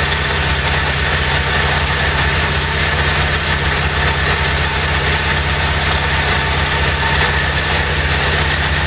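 1977 Harley-Davidson XLCR's 1000cc Ironhead V-twin engine idling steadily on its first fire-up.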